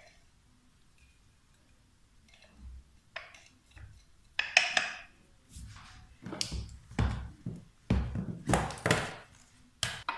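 Knocks and clatters of kitchen containers handled on a countertop: a few faint ones from about two seconds in, then louder and closer together through the second half.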